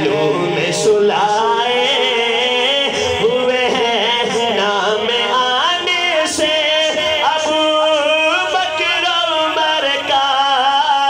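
A man singing an Urdu naat into a microphone over a PA system, holding long, wavering melodic lines without pause.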